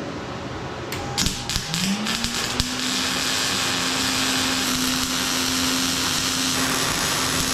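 Fume extractor switched on after a few clicks, its fan motor spinning up in pitch over about a second and then running steadily with air rushing through it.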